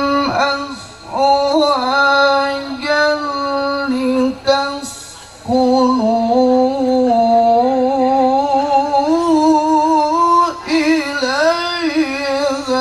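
A man chanting Quran recitation (tilawah) into a microphone, holding long, wavering, ornamented notes with short breaks for breath.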